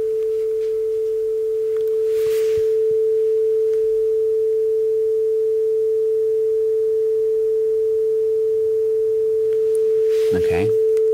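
Steady 440 Hz sine tone from an online tone generator, one unbroken pure pitch.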